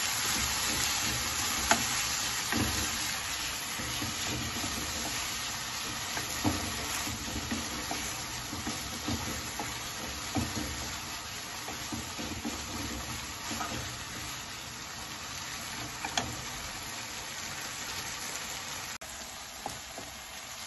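Shrimp, squid, peppers and tomato sizzling steadily in a non-stick frying pan while a wooden spatula stirs them, with a few sharp knocks of the spatula against the pan.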